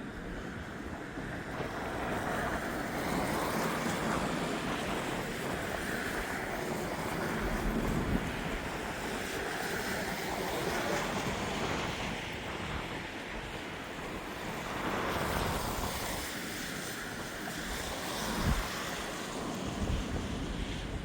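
Strong gusty storm wind near 100 km/h, swelling and easing several times, with the gusts buffeting the microphone.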